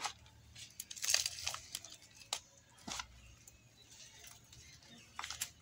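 Styrofoam being broken apart by hand: scattered crunching and crackling, with a cluster about a second in and two sharp snaps near the middle.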